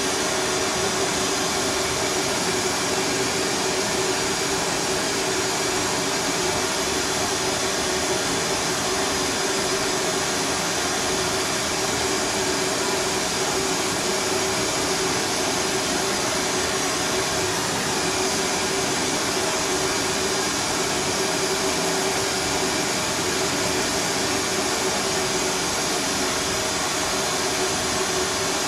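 Oxy-fuel gas torch flame playing on a steel front coil spring: a steady, even hiss with a low hum underneath. The spring is being heated cherry red so it softens and collapses, releasing its tension.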